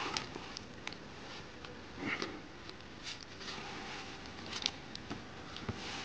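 Rustling of nylon hammock fabric and clothing as a person shifts and settles into a hammock, with scattered small clicks and a louder swish about two seconds in.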